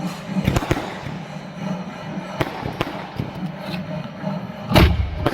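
Fireworks going off: a handful of sharp bangs at uneven intervals, the loudest about five seconds in.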